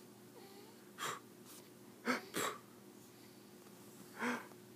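Newborn baby's short breathy noises: one about a second in, a quick pair just after two seconds, and one more past four seconds.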